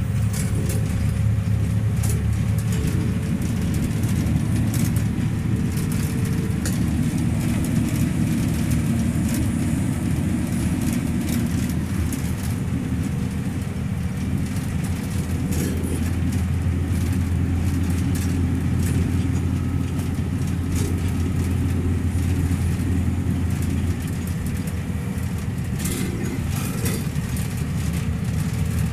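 Ordinary (non-air-conditioned) bus heard from inside the cabin while driving: a steady, loud engine hum and road rumble. The engine note drops slightly about halfway through.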